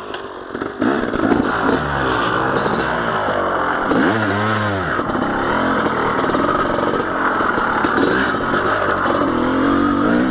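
1991 Honda CR500 two-stroke dirt bike engine revving as it is ridden along a trail, its pitch rising and falling with the throttle, with a sharp rev up and back down about four seconds in.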